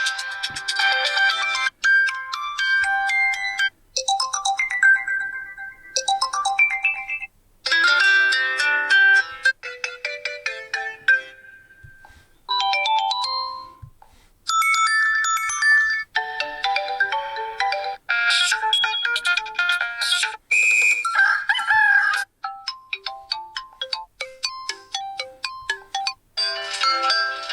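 Default ringtones of a Meizu M5s smartphone played one after another: several short melodic electronic tunes of a few seconds each, each cut off abruptly before the next begins.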